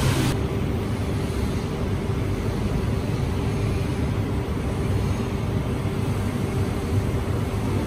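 Steady low rumble of factory ambience with a faint steady hum, typical of workshop fans and machinery; a high hiss drops out a moment in.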